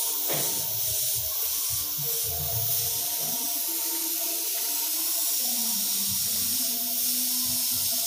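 Gravity-feed spray gun hissing steadily as it sprays paint finish onto a wooden tabletop.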